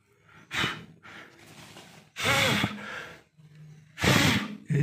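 A man's breath close to the microphone: three loud sighing exhales about two seconds apart, the middle one with a little voice in it.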